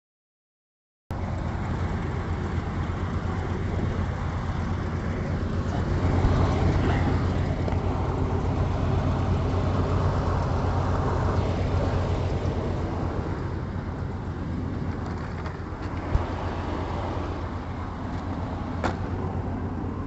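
A 1988 Chevrolet 454 big-block V8 in a motorhome running steadily, being test-run after its leaking oil pressure switch tee was replaced. The sound cuts in abruptly about a second in, and a couple of light ticks come near the end.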